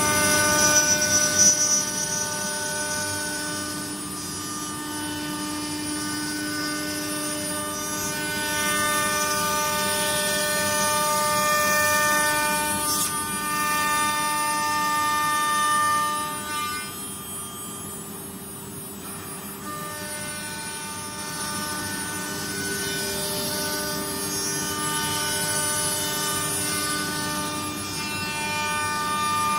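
CNC router spindle running at a steady high whine while machining wood, with cutting noise rising and falling as the tool works; it goes quieter for a few seconds about two-thirds through.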